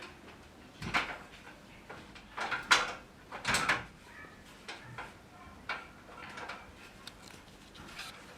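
A series of knocks and clatters, as of household objects being handled, the loudest about a second in and again around three seconds in, with fainter ones later.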